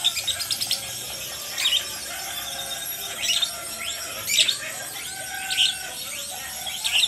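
Female lovebird calling: a fast rattling trill in the first second, then shrill, sharp squeaks repeated about every second. This is the 'dobelan' (double-tone) voice that lovebird song keepers listen for.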